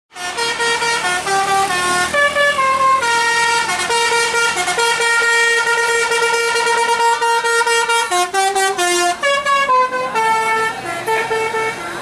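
A tour bus's telolet horn playing a fast tune of stepped notes, some short and some held, with the bus's engine rumbling low under the first few seconds.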